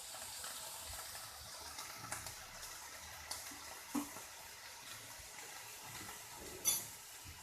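Chopped cabbage and capsicum sizzling quietly in oil in a pan. A few light clicks of the stirring spoon against the pan come through, with a sharper one near the end.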